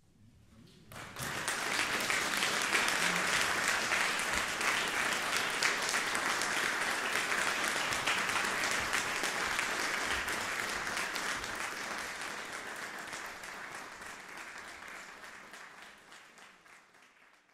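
Audience applauding. The clapping breaks out about a second in, holds steady, and dies away over the last few seconds.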